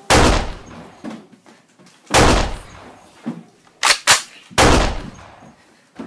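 Gunshot sound effects: five single shots, each with a short fading tail. One comes just after the start, one about two seconds in, then a quick pair and one more shot around four seconds in.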